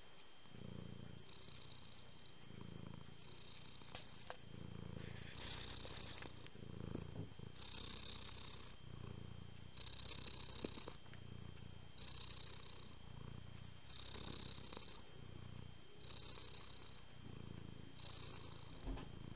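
A domestic cat purring, a low buzz that swells about once a second with a breathy hiss every couple of seconds, along with a few faint clicks.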